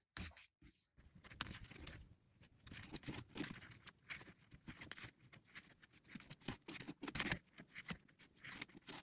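Faint, irregular rustling and scratching of macrame cord being handled: cords pulled, slid over a paper sheet and knotted into clove hitches.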